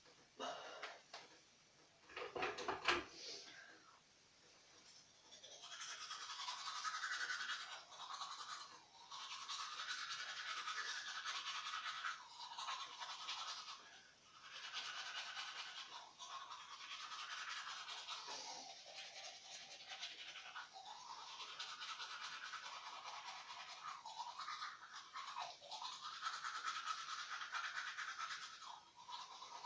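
Teeth being brushed with a toothbrush: a scratchy scrubbing that goes in stretches with short breaks. A brief louder clatter comes about two seconds in.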